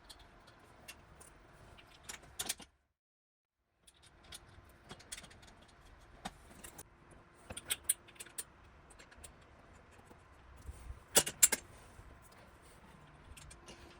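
Scattered metal clicks and clinks of an Allen wrench, bolts and rack fittings being handled while a rear cargo rack is mounted on a bike. The loudest clacks come about eleven seconds in. About three seconds in there is a second of dead silence.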